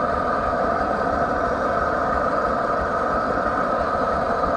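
Blowtorch burning with a steady rushing noise as it preheats the hot bulb of a 1925 Hein 18 hp marine hot-bulb engine before starting.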